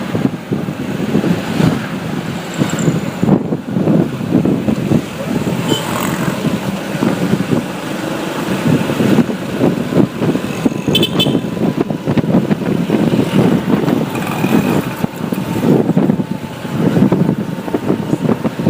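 Ride on a motorbike through road traffic: a continuous, uneven rumble of engine and road noise, with surrounding traffic. About eleven seconds in there is a brief high-pitched chirp or beep.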